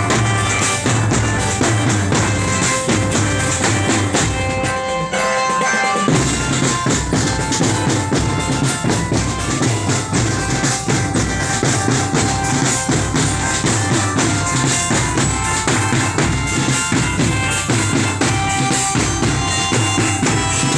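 Marching drum band playing: snare and bass drums beating steadily, with a melody line carried over the drums. The low drums drop out briefly about five seconds in, then come back.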